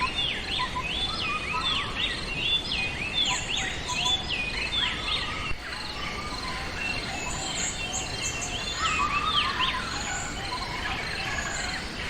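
Wild birds singing: a quick run of repeated sweeping whistled notes for about the first half, then scattered higher chirps and lower warbles, over a steady background hiss.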